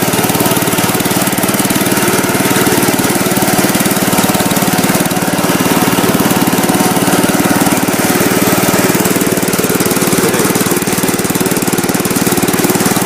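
Kohler K241 single-cylinder engine on a Gravely Commercial 10A tractor running steadily, loud and even, freshly rebuilt with a new piston, rings and rod.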